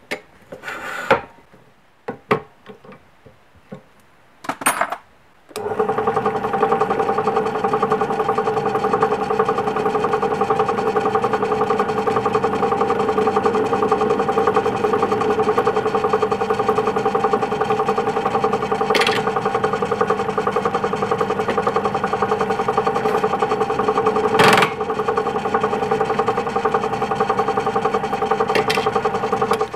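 A few handling knocks, then about five seconds in a drill press motor starts and runs steadily while a step drill bit bores the workpiece, with a few brief sharp clicks; it stops suddenly at the end.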